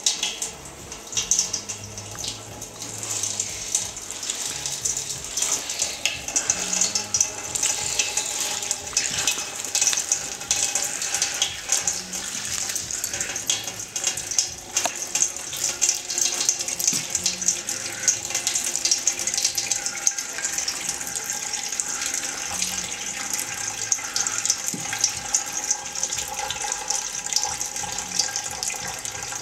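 A thin stream of freshly pressed pear juice pouring off a basket fruit press's tray into a pot of juice: a steady splashing trickle.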